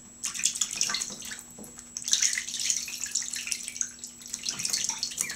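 Ducklings paddling and dabbling in shallow bathtub water: irregular small splashes and sloshing, busier in the second half.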